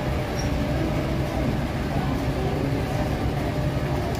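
Steady low rumble and hum of a busy metro station passage.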